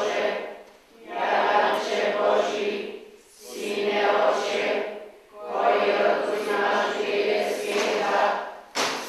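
A church congregation singing together in unison, in phrases of about two seconds with short breaks for breath between them. There is a brief sharp click near the end.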